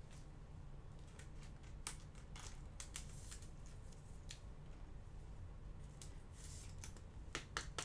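Faint scattered clicks and light rustles, a few closer together near the end, over a low steady hum.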